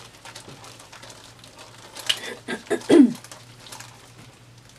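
A paint-covered canvas whirling on a turntable, with faint ticks and patter of flung paint. About three seconds in comes a short wordless voice sound that falls in pitch.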